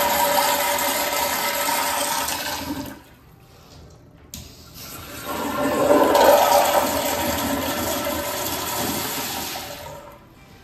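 Commercial tankless toilet flushing: a loud rush of water through the bowl that dies away about three seconds in. After a short gap, a second flush starts about five seconds in and tapers off near the end.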